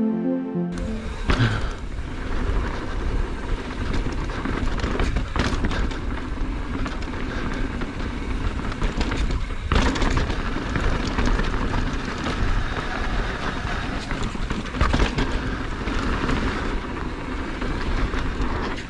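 Background music cuts off within the first second, then the sound of a mountain bike riding fast down a dirt trail: steady wind rush on the camera microphone with tyre noise and frequent knocks and rattles from the bike over rough ground.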